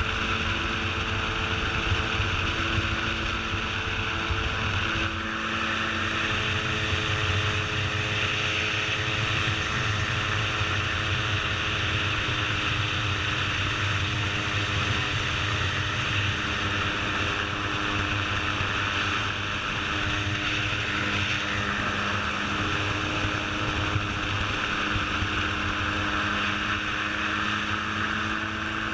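Gyroplane engine and propeller droning steadily in flight, heard from the open cockpit with wind rushing over the microphone.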